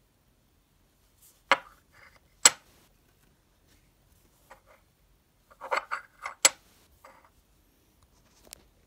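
Morgan silver dollar handled with cotton gloves and set down on a tabletop: two sharp metallic clicks, then a flurry of softer taps and glove rustles about six seconds in that ends in another sharp click as the coin is laid down turned over.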